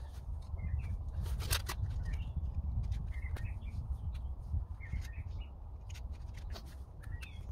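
Small woodland birds chirping in short repeated calls, over a low steady rumble, with sharp clicks and a scrape from Trangia meths stove kit being handled, loudest about a second and a half in.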